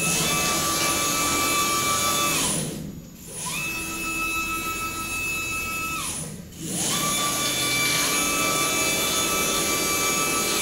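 Stepper motors driving a CNC plasma table's gantry along its rack-and-pinion drive, a steady whine of several pitches as it jogs back and forth. Twice the whine slides down and dies away as the gantry slows to a stop, then rises again as it sets off the other way.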